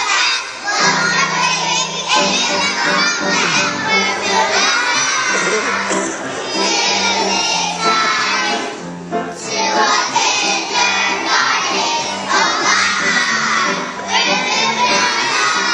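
A group of preschool children singing a song together, with short breaks between lines.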